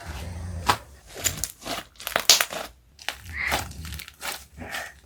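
Crinkling and crackling of slime-making materials and plastic packaging being handled, a quick irregular string of short sharp crackles.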